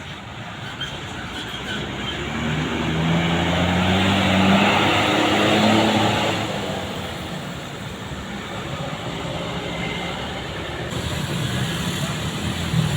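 A bus driving past on the road: engine and tyre noise swell to a peak about four to six seconds in, then fade, leaving steady traffic noise.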